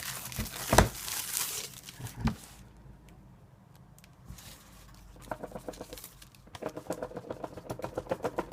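Plastic shrink-wrap being torn and crumpled off an iPad Mini box, with a couple of knocks against the box, for the first two and a half seconds. After a short lull, a fast, stuttering rasp of cardboard packaging rubbing, several pulses a second, runs through the last few seconds.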